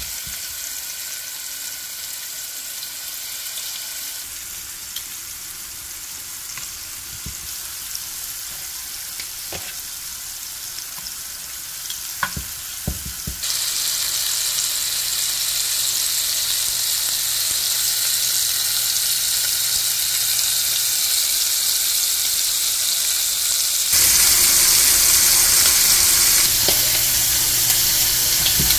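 Seasoned shrimp sizzling in avocado oil in a frying pan: a steady frying hiss. A few sharp clicks come about twelve seconds in. The sizzle gets louder about halfway through and again near the end.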